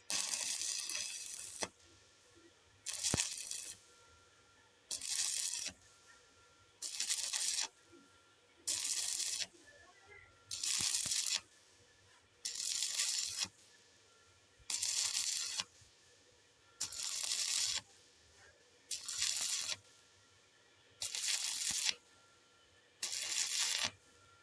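Stick welding arc on thin mild-steel square tube, crackling in about twelve short bursts roughly every two seconds, each under a second long: the arc is struck and broken again and again, laying the weld in short stitches on the thin-wall tube.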